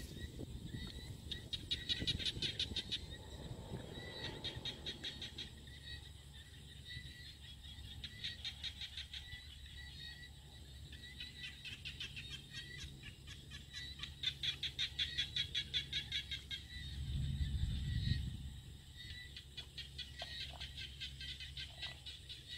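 Rice-field ambience of small calling animals: rapid pulsing trills in bursts of a few seconds each, over a steady string of short high chirps more than once a second. A low rumble swells and fades about three-quarters of the way through.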